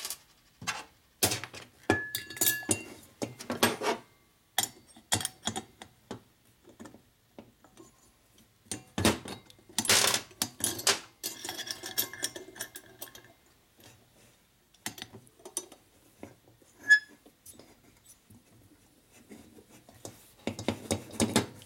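Valve springs, a spring collar and a C-clamp valve spring compressor being handled and set on a shovelhead cylinder head: a string of metal clicks, clinks and knocks, loudest about nine to ten seconds in, with a couple of brief metallic pings.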